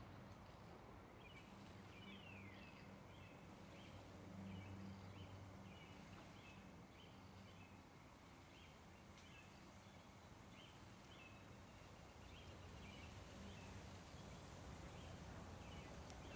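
Faint outdoor ambience: a bird chirping repeatedly with short high calls about once a second, and one falling call near the start, over a low steady hum.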